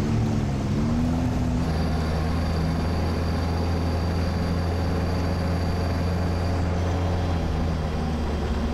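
Sherp all-terrain vehicle's diesel engine running under way, its pitch shifting over the first second or two and then holding steady, with a faint high whine through the middle.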